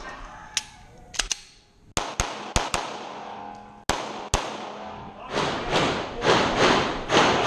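Pistol shots from a .40 S&W Glock 22 during a timed competition string, fired mostly in quick pairs (double taps) over the first half, followed by a stretch of loud rushing noise.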